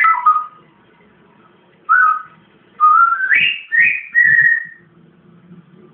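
Parrot whistling: a falling whistled note at the start, then a short whistle about two seconds in and a run of rising whistles that ends in a briefly held note.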